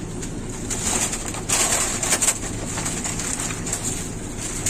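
Pigeons cooing, with a few sharp knocks about one and a half and two seconds in from cooling-tower parts being handled.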